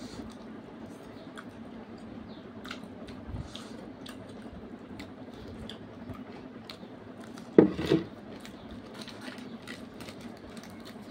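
Hand-eating sounds: fingers tearing puri and picking food off a wooden plate, with soft chewing and small scattered clicks over a steady low hum. About seven and a half seconds in there is a short, louder double thump.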